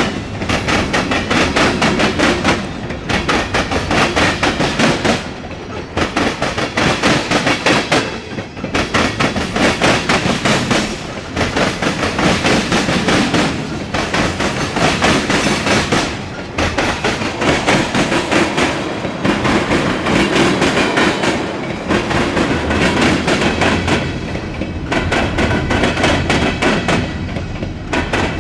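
A long mixed freight train's cars rolling past, wheels clattering over the rail joints in a rapid clickety-clack. The loudness dips briefly every two to three seconds.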